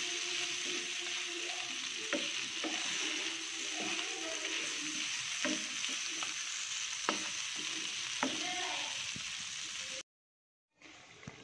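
Pork and tofu cubes sizzling as they fry in a nonstick pan, stirred with a wooden spatula that knocks against the pan several times. The sizzle cuts off abruptly about ten seconds in.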